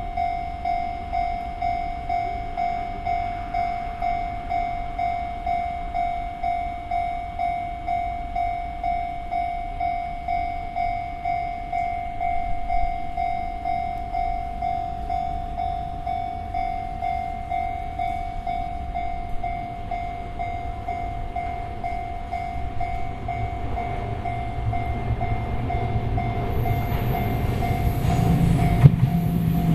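Japanese level-crossing warning bell ringing steadily at about three strikes every two seconds. A Sotetsu Line train's rumble grows over the last few seconds as the train reaches the crossing.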